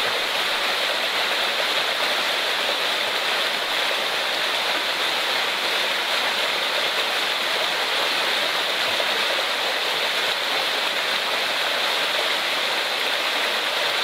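Small rocky forest stream running over rock in small cascades: a steady rushing of water, even in level, with no pauses.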